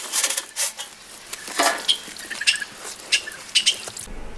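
Wet gravel being dug into: stones scraping and clicking against each other in quick, irregular strokes. It cuts off sharply about four seconds in.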